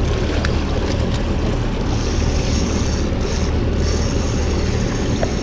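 Suzuki outboard motor running steadily, with water rushing past the hull as the boat moves. A high hiss joins about two seconds in.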